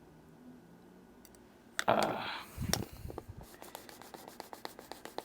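Small watch parts and tools being handled on a workbench: a short, loud scrape about two seconds in, a few low knocks, then a run of light clicks and ticks.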